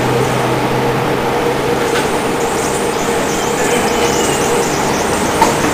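Small engine running steadily on 100% HHO (hydrogen-oxygen) gas, a continuous even mechanical running noise with a low hum that fades about two seconds in.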